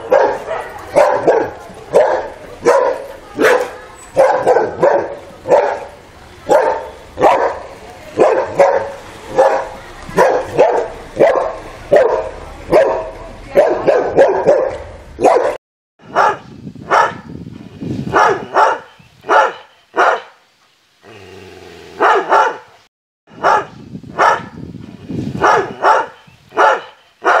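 A boxer barking repeatedly at a gate, about two barks a second. After a sudden cut, a Doberman barks in short separate runs.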